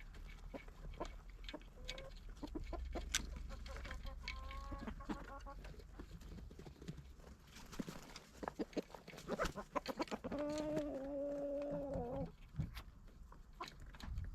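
Chickens clucking and calling, with short calls around four to five seconds in and one long, steady, drawn-out call of about two seconds starting about ten seconds in.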